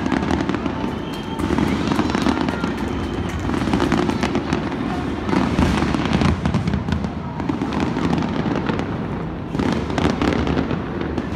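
Aerial fireworks display bursting without a break: a dense barrage of booms and crackles.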